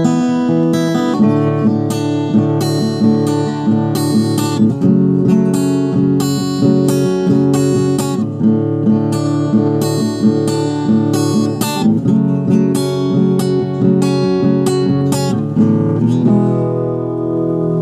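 Acoustic guitar strummed in a steady rhythm of chords, with one chord left to ring near the end before the strumming picks up again.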